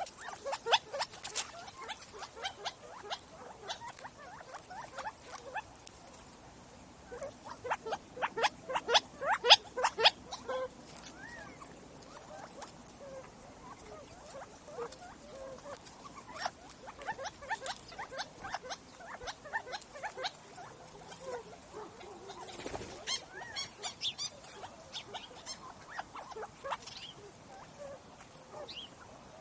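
Small desert animals feeding right at the microphone: bursts of rapid sharp tapping and clicking, loudest in a run about a third of the way in, with scattered taps and a few faint chirps after it.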